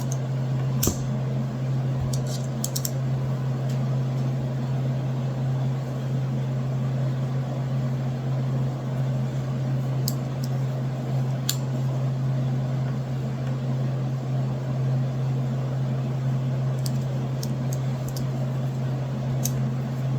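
A steady low hum from a fan or appliance, with a few light metallic clicks scattered through it as a stainless multitool is handled and its parts are snapped into place.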